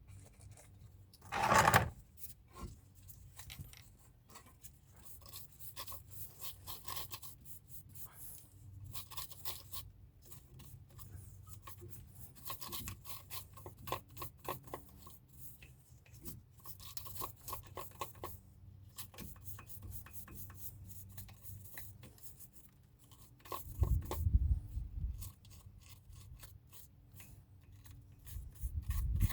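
Hand work on car brake parts: repeated rubbing and scraping strokes, with one short loud noise about a second and a half in and a few low thumps near the end.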